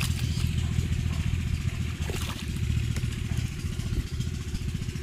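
A small engine running steadily with a fast, even low throb, over water splashing as a fish is grabbed by hand in shallow muddy water.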